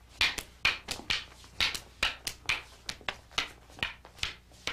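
Rattan escrima sticks clacking against each other in a fast, uneven rhythm of roughly three sharp strikes a second, as two partners trade blows in a kali stick-flow drill.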